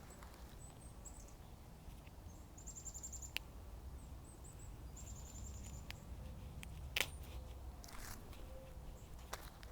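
Small birds chirping: a few short, rapid series of high chirps. A sharp click sounds about seven seconds in.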